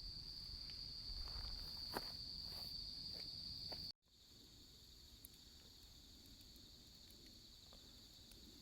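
Night insects chirring in a steady, high, continuous trill, with a few faint clicks or knocks in the first half. The sound cuts out abruptly about four seconds in and comes back quieter.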